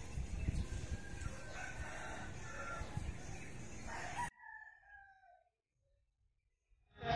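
Rooster crowing over a steady outdoor rumble. The sound cuts off abruptly about four seconds in, leaving one drawn-out call fading away, and a short burst of noise comes near the end.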